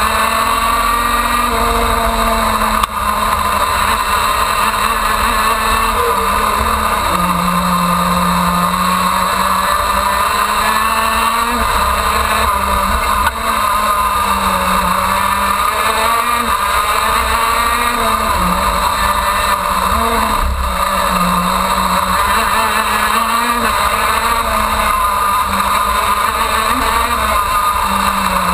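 Onboard sound of a KZ-2 shifter kart's 125cc two-stroke engine at racing speed, its pitch rising and falling as the driver accelerates, brakes and shifts through the corners. There are two brief dips in loudness, about three seconds in and again about thirteen seconds in.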